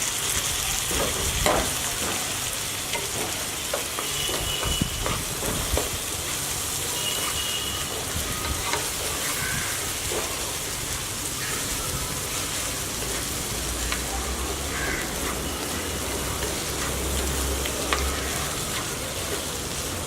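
Food sizzling steadily in a hot pan as it is stirred, with knocks and scrapes of the stirring utensil in the first few seconds.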